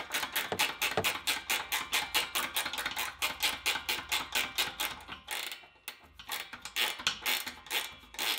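Ratcheting ring spanner clicking rapidly as it runs in an M8 bolt on the air-suspension reservoir mount, about five clicks a second, with a short pause a little past halfway before the clicking resumes.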